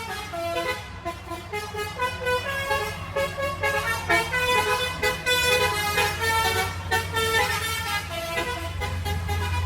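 A bus's basuri musical horn playing a tune in quick stepping notes, over a steady low drone that grows louder near the end.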